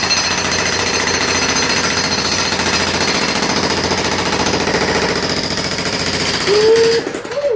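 Hilti TE 3000-AVR electric jackhammer breaking concrete with steady rapid hammering. It stops near the end with a short rising-then-falling tone.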